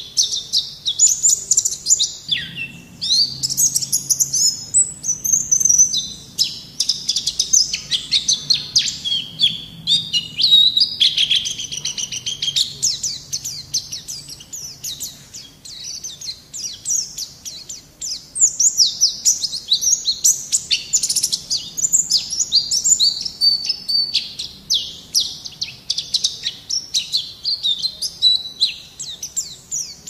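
White-eye (pleci) singing continuously: a fast, high twittering song of quick chirps and trills, with barely any pauses.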